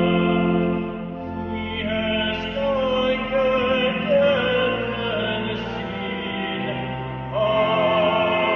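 An organ holding sustained chords under a solo singing voice with vibrato, performing a hymn. The accompaniment thins after about a second and swells back fuller near the end.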